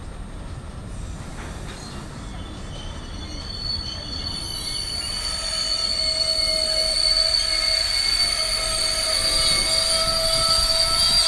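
Hooded freight wagons rumbling slowly past, with a steady high-pitched metallic squeal from the running gear that sets in a few seconds in and grows louder.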